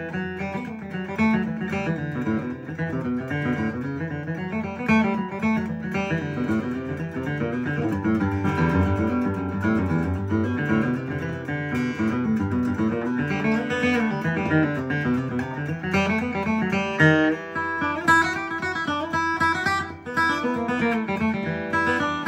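A 1937 Martin D-18, a mahogany-bodied dreadnought acoustic guitar, played solo: a steady flow of picked notes and chords, with bass runs rising and falling under the melody.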